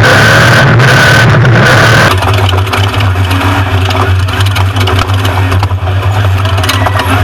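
Off-road race truck's engine running hard with a steady high whine, then abruptly dropping to a steady lower drone about two seconds in.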